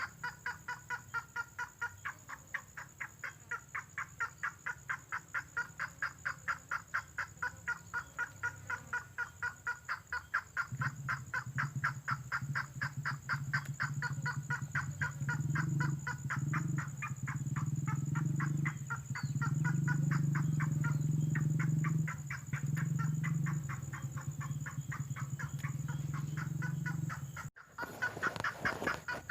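Tengkoah merah bird call: a fast, even series of short repeated notes, two to three a second, from a bird-luring recording. A low steady hum joins in from about a third of the way through and stops, with short breaks, shortly before the end.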